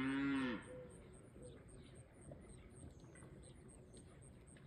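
The falling end of a cow's moo, cut off about half a second in, followed by faint outdoor sound with short high bird chirps and an even, high-pitched pulsing.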